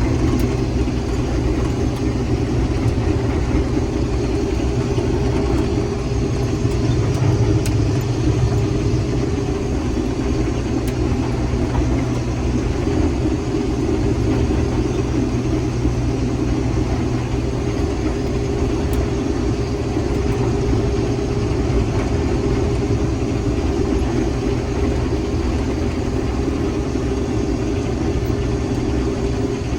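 Combine harvester running steadily, a constant low drone of engine and machinery.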